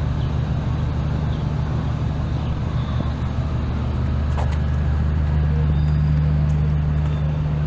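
A motor vehicle engine running with a steady low hum, over general city street traffic noise.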